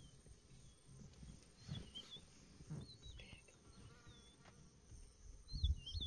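Faint savanna ambience: short whistled bird calls repeating over a steady chirring of insects, with low rumbles on the microphone that are loudest near the end.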